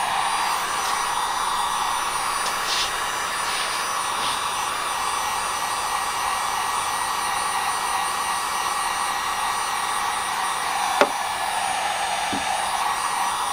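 Electric heat gun blowing steadily, a constant hissing rush of hot air used to warm the extruded decal letters and soften their double-sided adhesive tape. A single sharp click sounds near the end.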